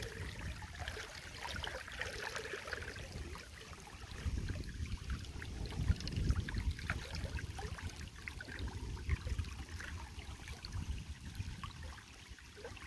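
Shallow river water running and trickling, with wind rumbling on the microphone.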